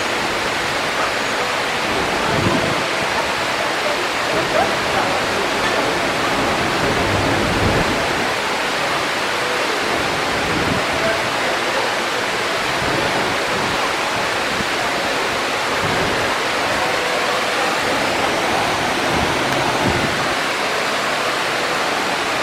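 Man-made attraction waterfall rushing steadily into its lagoon, an even, unbroken wash of noise.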